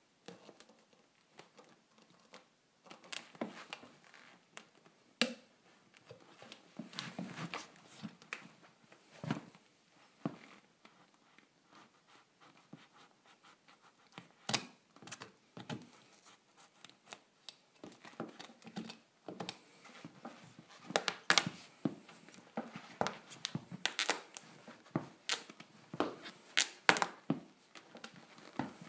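Knife blade cutting and prying into the clear plastic heel air unit of a Nike Air Max 2013: an irregular run of cracks, scrapes and tearing sounds that grows denser and louder in the second half.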